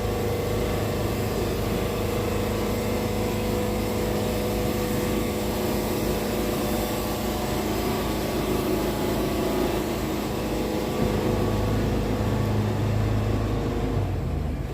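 Wood-Mizer portable band sawmill running steadily as the blade saws a pass through a red cedar log, its engine drone holding one pitch; the sound drops off abruptly right at the end.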